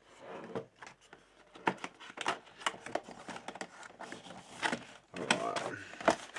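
Hands prying and sliding a clear plastic outer cover off a Blu-ray tin case: irregular clicks, scrapes and rustles of plastic against the case.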